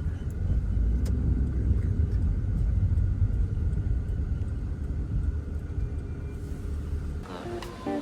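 Low, steady rumble of road traffic that cuts off about seven seconds in.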